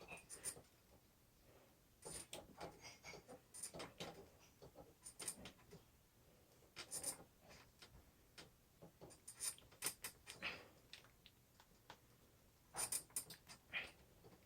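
Faint, scattered clicks and scratches of hands working small parts of an electric longboard drive wheel, in clusters every second or two.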